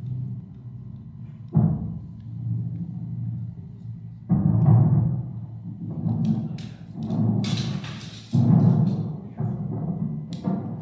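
Recorded air-raid sound effects played over loudspeakers in the shelter: a low steady rumble broken by sudden heavy booms of bombs, about a second and a half in, just after four seconds and just after eight seconds, with crackling in between.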